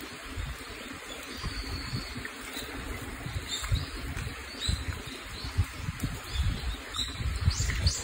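Shallow mountain stream trickling over rocks, with scattered short, high chirps of small birds and irregular low rumbles that grow stronger near the end.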